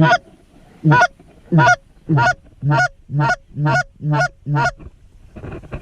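Canada goose honks: a run of about nine loud, clipped honks, each breaking from a low note up to a high one, coming faster toward the end, as blown on a hunter's goose call.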